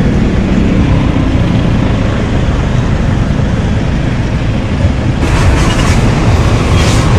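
Steady rumbling road and wind noise from riding an e-bike through street traffic behind a car, getting hissier about five seconds in.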